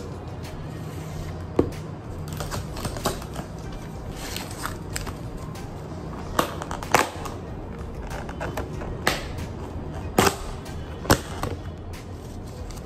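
Clear plastic food containers and their snap-on lids being handled on a table: scattered sharp plastic clicks and knocks, about nine in all, as lids come off and containers are set down.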